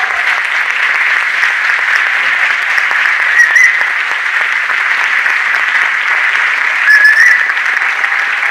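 Audience applauding steadily, with two short high-pitched calls rising above the clapping about three and a half and seven seconds in.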